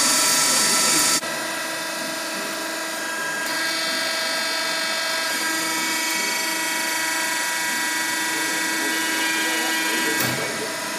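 Hydraulic baling press running: a steady mechanical whine of the motor and hydraulic pump. A loud hiss cuts off about a second in, and the tone shifts again near the end.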